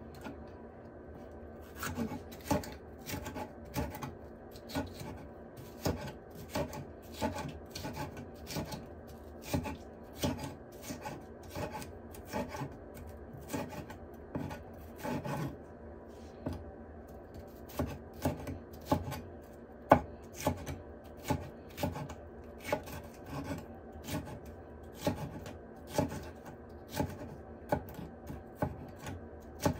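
Kitchen knife cutting a red bell pepper on a wooden butcher-block cutting board: the blade knocks on the wood in an irregular run, about one or two strokes a second, starting a second or two in, some strokes much louder than others.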